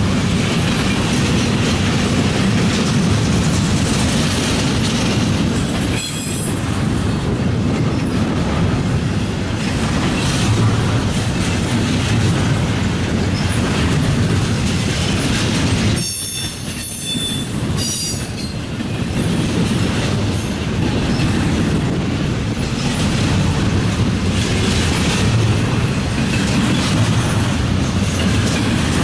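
Norfolk Southern double-stack intermodal freight cars rolling past, a loud steady rumble of steel wheels on rail. Thin high squeals cut in briefly twice, faintly about six seconds in and more clearly a little past halfway.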